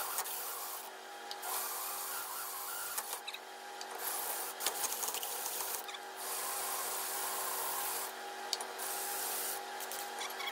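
Cordless drill driving a hole saw through a metal plate held in a vise: a steady cutting noise that stops briefly several times.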